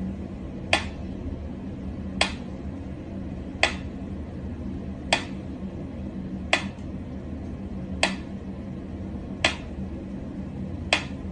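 Mechanical pendulum metronome ticking slowly and evenly, eight sharp ticks about one and a half seconds apart.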